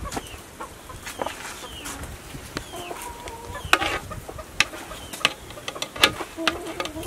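Chickens clucking, with sharp clinks of a metal spoon knocking against a large cooking pot as greens are stirred.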